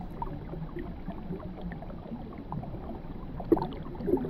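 Muffled underwater ambience with scattered faint clicks and ticks, and two soft knocks about three and a half and four seconds in.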